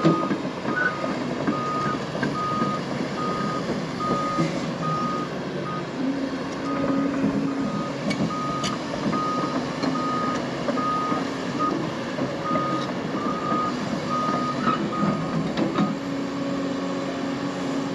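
Hyundai excavator's diesel engine running while its warning alarm beeps steadily, about three beeps every two seconds. The engine note grows heavier at times as the machine works.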